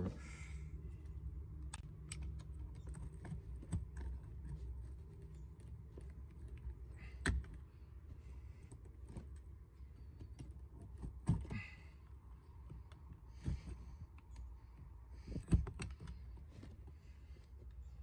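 Stanley-type utility knife cutting and scraping through carpet-covered plastic trim: irregular small clicks and ticks, with a few louder sharp taps about 7, 11, 13 and 15 seconds in.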